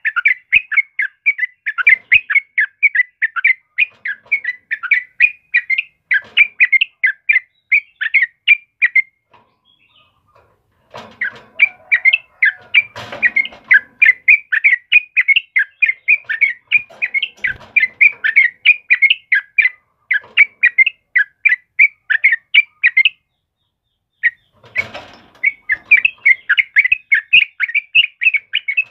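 Yellow-vented bulbul (trucukan) singing a long, rapid run of short, bright repeated notes, several a second. The run pauses twice, about nine seconds in and again a couple of seconds before the end.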